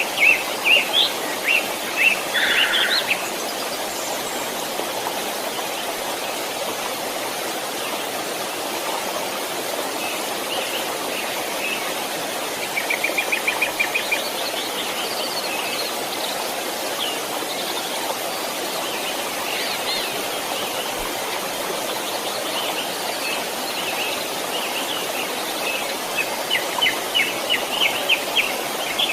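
A stream flowing and babbling steadily, with songbirds calling over it: a cluster of chirps at the start, a quick trill near the middle, and a run of repeated chirps near the end.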